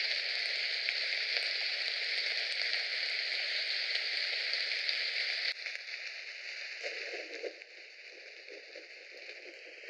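Recorded rain ambience from an online background-noise website: a steady rain hiss. It drops in level and changes about five and a half seconds in, with a brief lower-pitched swell around seven seconds as another sound layer is switched on.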